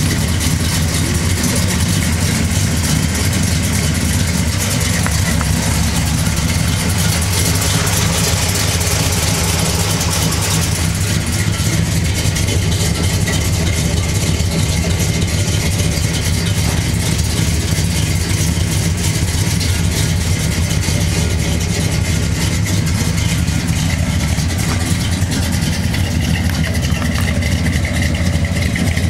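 Engine of a 1970s Ford F-series pickup idling steadily: an even low hum that neither revs nor changes.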